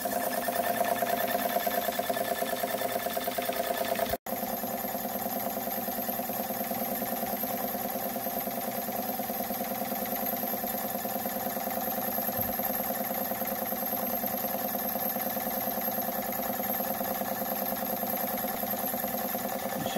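1952 Jensen 50 model steam engine running steadily under steam, a fast even mechanical beat from the spinning engine as it drives its newly repaired feed water pump. The sound drops out for an instant about four seconds in, then carries on slightly quieter.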